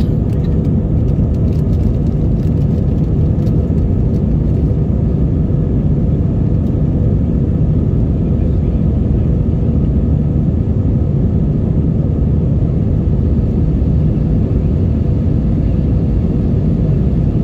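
Steady cabin roar of an Airbus A320-232 in flight just after takeoff: its IAE V2500 engines and the airflow heard from a window seat, a low rumble with a faint steady hum.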